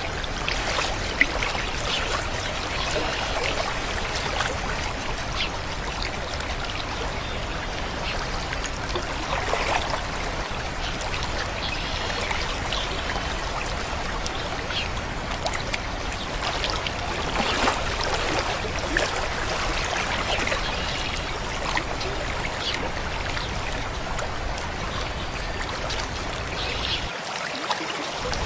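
Running water of a stream: a steady rush, flecked with small splashes and gurgles.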